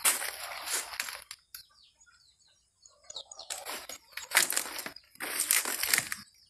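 Bursts of rustling and crunching from leaf debris being trampled or brushed against. A quiet lull in the middle holds a few short, faint falling bird chirps.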